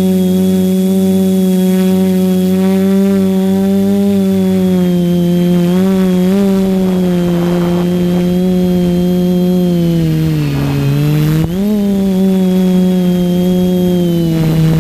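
TBS multirotor drone's motors and propellers buzzing steadily in flight. The pitch sags about ten seconds in, then climbs back up.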